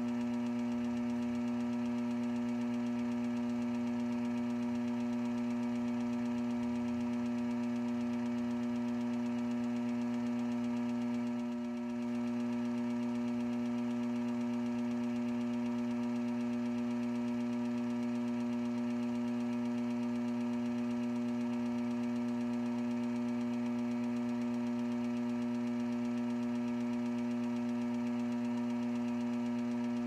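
Gem faceting machine running with a steady electric motor hum, its level dipping briefly about twelve seconds in.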